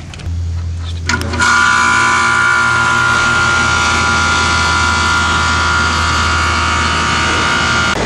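Air-conditioning condensing unit's compressor started by pressing its contactor closed by hand. A low hum comes in just after the start, then with a click about a second in the unit settles into a steady, loud run with a high whine, pumping the refrigerant down into the condensing unit.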